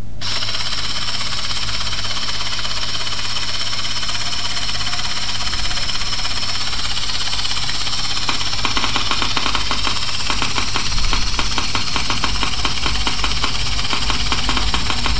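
3Shape TRIOS intraoral scanner starting up and running in the mouth: a steady high hiss that comes on suddenly over a low hum. From about halfway through, a fast buzzing rattle of many clicks a second joins in.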